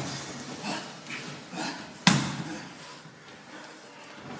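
Grappling bodies on a mat: one sharp slap of an impact about two seconds in, with quieter scuffing of skin and limbs on the mat around it.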